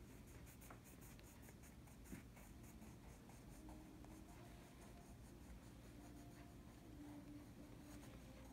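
Colored pencil lead scratching on paper in quick, repeated back-and-forth strokes, faint, as a small area is filled in with color.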